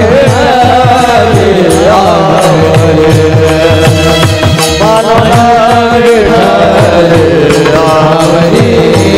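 Varkari kirtan devotional music: a voice sings a slow, bending melodic line over steady strokes of a mridang (two-headed barrel drum) and the chorus's brass hand cymbals (taal) clashing in time.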